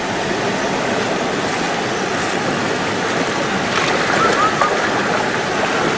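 Steady rush of a mountain stream's flowing water, with a brief faint voice about four seconds in.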